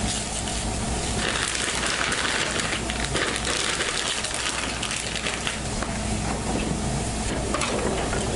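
Garlic sizzling in olive oil in a frying pan on a portable gas stove, a steady hiss, with scattered snaps and knocks as celery stalks are broken and handled.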